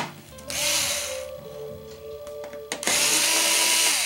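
Cordless electric screwdriver running twice, about a second each time, spinning up and then holding speed as it backs out screws.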